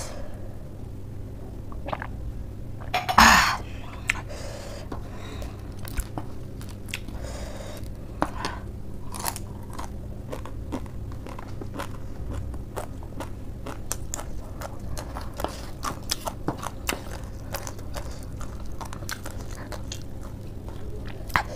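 Close-up crunching and chewing of crumbled spicy Wai Wai instant noodles, many small crisp crunches. One louder, brief noise about three seconds in.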